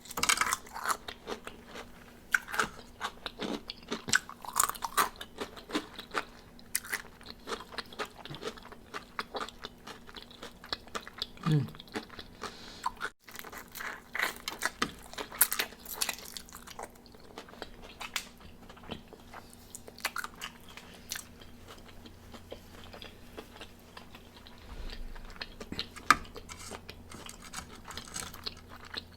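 Close-up crunching and chewing of crispy fried chicken wings: crackling bites of fried skin and wet chewing, irregular throughout.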